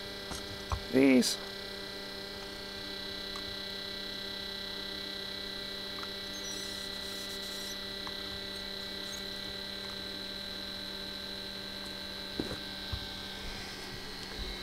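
Steady electrical mains hum with several fixed tones.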